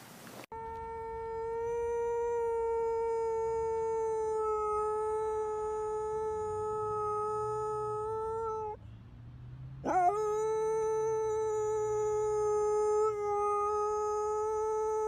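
Bulldog howling: one long, steady howl lasting about eight seconds, a short breath, then a second howl that swoops up into the same pitch and holds.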